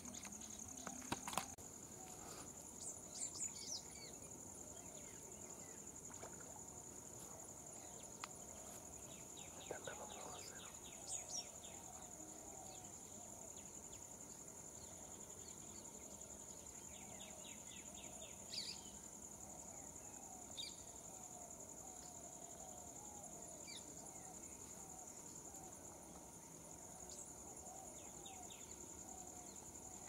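Faint natural ambience: a steady high-pitched insect drone, with scattered short bird chirps and a few quick trills.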